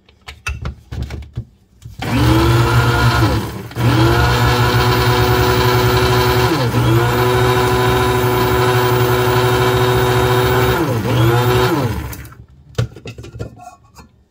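Electric blade spice grinder running in pulses, grinding dried seasonings to powder. A steady motor whir starts about two seconds in, cuts out briefly and drops in pitch a couple of times as the button is let go and pressed again, and stops about twelve seconds in. Light clicks and knocks of the grinder being handled come before and after.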